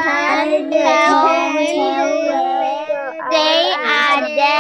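Several children's voices reading an English passage aloud together, not quite in step, over a video call, with a short break about three seconds in.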